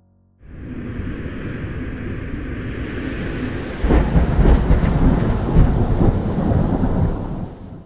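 A loud rushing noise sound effect starts suddenly. About four seconds in it turns much louder, with a heavy low rumble and crackle like thunder, then cuts off just before the end.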